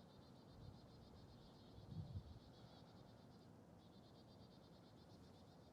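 Near silence, under a faint, high, fast-pulsing chorus of calling animals that breaks off briefly twice. There is a soft low thump about two seconds in.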